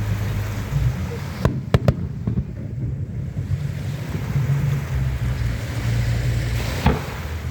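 Fireworks bursting: three quick sharp bangs about a second and a half in and one more near the end, over a steady low rumble of wind on the microphone.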